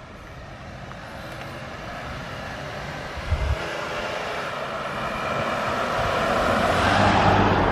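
A passing road vehicle, its tyre and engine noise growing steadily louder as it approaches.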